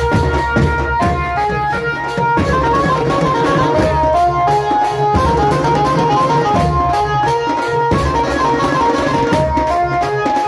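Indian banjo-party street band music: an electric Indian banjo (bulbul tarang) plays a stepping melody of held notes over loud, fast drumming.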